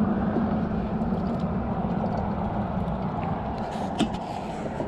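Steady rumble of road traffic crossing the highway bridge overhead, with one sharp click about four seconds in.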